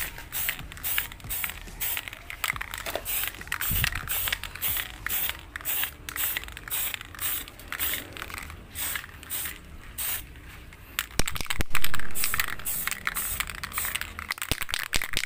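Aerosol spray-paint can hissing in short, repeated bursts, about two to three a second, as black paint is sprayed onto a helmet. A single louder bump comes about three-quarters of the way through.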